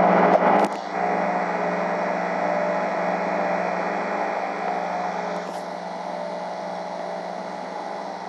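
Steady air-conditioner hum over city traffic noise: a constant low tone under an even rushing noise. It drops slightly in level about a second in and shifts again around five and a half seconds.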